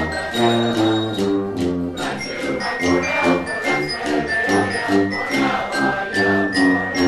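Background music with a steady beat, the notes changing in a regular rhythm.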